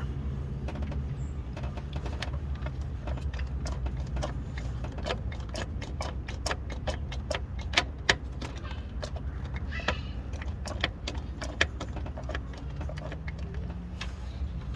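Car engine running at a steady idle, with many sharp, irregular clicks and taps over it, thickest in the middle.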